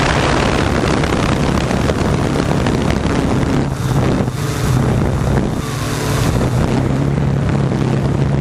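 Multirotor drone's motors and propellers buzzing in a steady hum while in flight, with wind rushing over the microphone.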